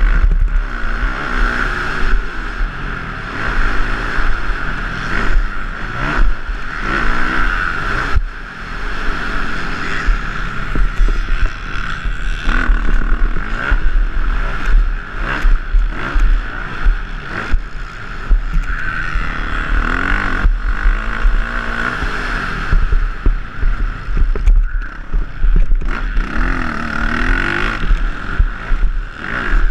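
Motocross dirt bike engine racing on a dirt track, its revs rising and falling over and over as the rider accelerates and backs off. A steady low wind rumble runs under it on the helmet-mounted camera.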